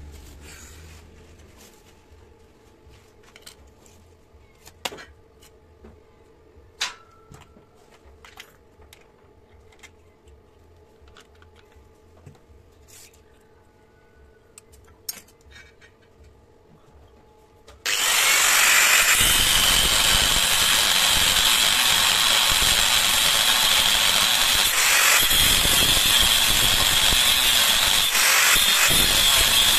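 Light scattered clicks and taps over a faint hum, then about two-thirds of the way through an electric power tool starts abruptly and runs steadily and loudly, with a high whine.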